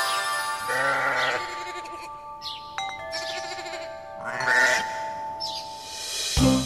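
Sheep bleating a few times over soft held chime notes, with the backing music of the song starting near the end.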